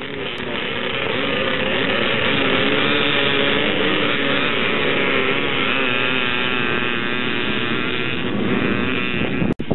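A pack of pre-1974 air-cooled vintage motocross bikes revving hard together at the start, then pulling away off the line, many engine notes rising and falling over one another. The sound swells in the first second and breaks off abruptly just before the end.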